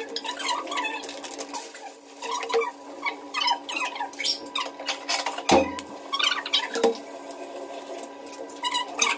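Clicks, scrapes and creaks of a metal ring-pull tin lid being worked open by hand, with one heavier thump about five and a half seconds in.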